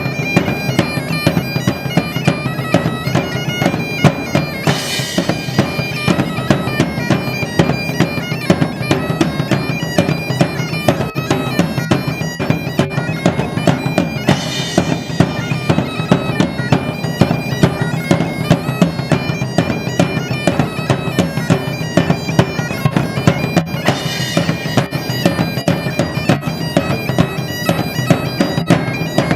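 Loud music: a fast, busy pipe melody over a steady drone, driven by a quick drum beat, with a bright crash about every ten seconds.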